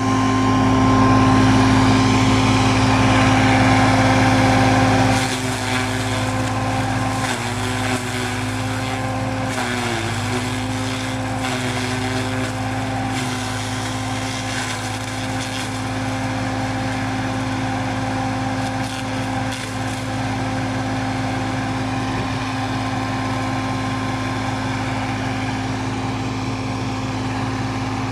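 Tractor engine driving a small PTO-powered feed and hay grinder at steady speed while dry corn stalks are fed in and shredded. The hum steps down in level about five seconds in, and its pitch sags briefly twice, at about seven and ten seconds, as the grinder takes the load of the stalks.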